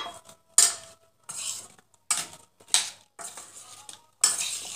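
Metal spoon scraping and clinking against a stainless steel bowl while tossing sliced potatoes and carrots, in about six short strokes roughly half a second apart.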